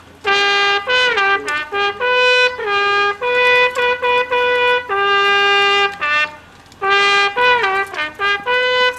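Bugle call on a brass bugle: a run of short and held notes moving among a few pitches of the bugle's natural scale, with a pause of about a second two-thirds of the way through.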